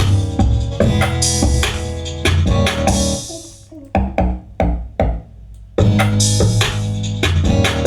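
Trapiano instrumental beat (trap drums over an amapiano groove) playing back with drums, deep bass and a plucked melody. About three seconds in it drops out to a few separate hits for roughly two seconds, then the full beat comes back in.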